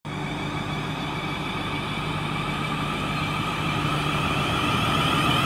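A train running at a station platform: a steady mechanical hum with several held whining tones, growing slowly louder.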